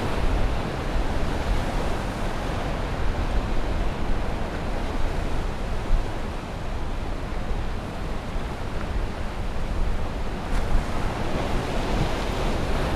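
Steady sea and wind noise: waves washing, with wind buffeting the microphone.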